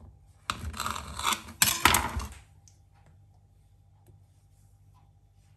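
Rustling and a few sharp clicks for about two seconds as sweets are handled and placed on a pizza, then quiet with a faint steady hum.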